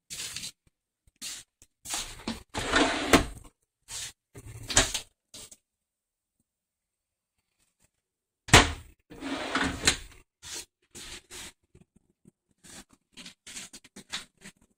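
Wooden cabinet doors being handled, opened and shut, with knocks and rustles in short irregular bursts, a sharp knock about eight and a half seconds in, and a few seconds of silence before it.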